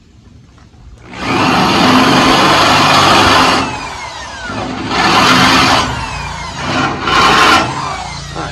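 DeWalt drill with a quarter-inch bit drilling through the top layer of sheet steel on a replacement inner tail panel, opening the screw pilot holes for plug welds. Three runs: a long one of about two and a half seconds starting about a second in, then two shorter ones.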